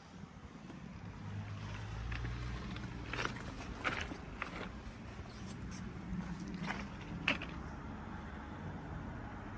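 Weserhütte excavator's air-cooled Deutz diesel engine running steadily, with several sharp knocks in the middle.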